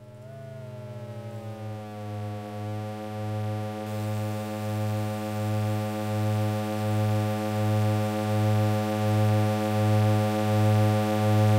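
Low, steady synthesizer drone from a Make Noise modular synth played through small desktop monitors. It swells and fades in a slow, even pulse and grows gradually louder. In the first two seconds or so its upper overtones slide downward and then settle into a fixed chord of partials.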